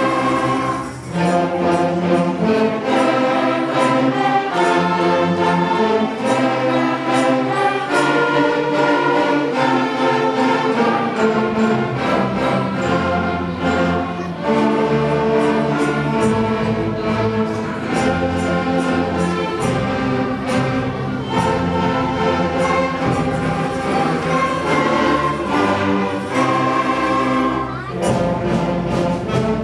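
A school band and string orchestra playing together in one full ensemble piece: sustained chords and a moving melody, with strings and winds.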